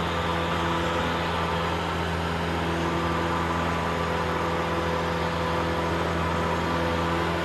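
Cessna 172's piston engine and propeller running at a steady pitch in flight, heard inside the cabin as an even drone with airflow hiss.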